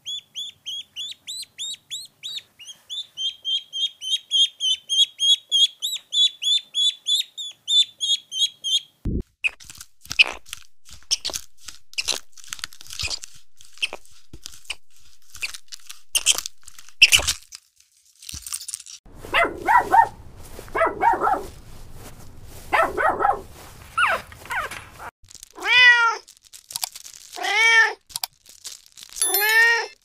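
Ducklings peeping rapidly and continuously for the first nine seconds. Then a grey squirrel's run of sharp clicks and short calls. From about 19 seconds a kitten mews repeatedly, ending in three long meows near the end.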